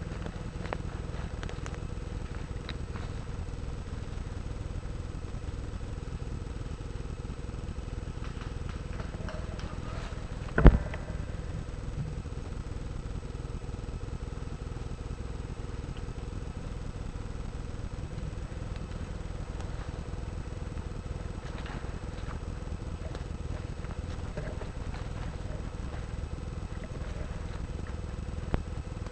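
Steady low rumble of handling noise on a rifle-mounted camera, broken once, about ten and a half seconds in, by a single sharp loud crack from the spring airsoft sniper rifle firing.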